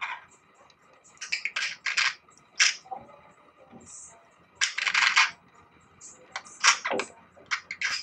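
Budgerigar chattering: an irregular string of short, scratchy chirps and clicks, with a falling call about seven seconds in.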